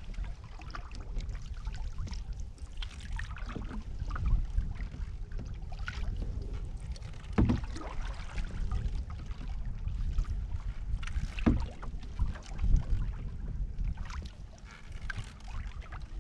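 Canoe paddling: a wooden single-blade paddle dipping and pulling through lake water in repeated strokes, a few of them louder. A steady low rumble of wind on the microphone runs underneath.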